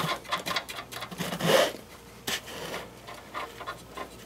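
Small metal clicks and rubbing as the primary nut is handled and threaded by hand onto the DeLorean front sway bar's threaded end, with a louder rub about one and a half seconds in.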